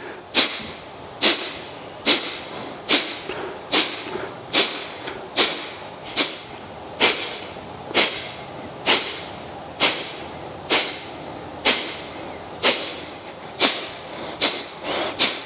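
Rapid, forceful exhalations through the nose in Kapalabhati pranayama breathing: a sharp puff of air, a little more than one a second, each starting hard and fading fast as the abdominal muscles snap inward.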